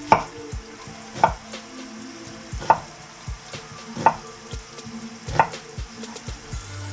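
Kitchen knife cutting food on a wooden cutting board, a sharp knock of the blade on the board about every second and a half, over food frying in a pan.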